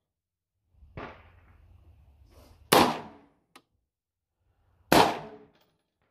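Rifle shots from an AR-style rifle chambered in 7.62x39: two loud single shots about two seconds apart, the first a little under three seconds in, each followed by a short echo. A fainter shot comes about a second in.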